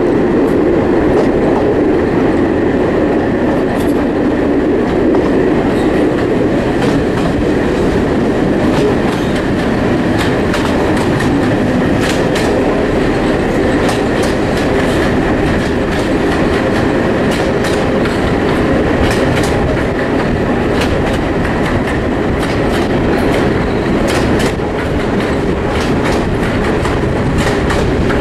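Heritage train coaches running along the line, heard from an open carriage window: a steady rumble of wheels on track with sharp clicks from the rail joints, which come thicker after the first several seconds.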